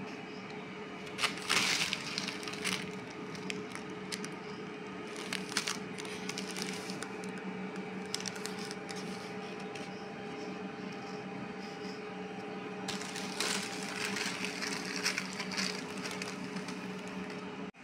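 Tissue paper rustling and crinkling as a wool coat is handled in its box, in bursts about a second in, around five and a half seconds, and again from about thirteen to sixteen seconds. A steady low hum runs underneath.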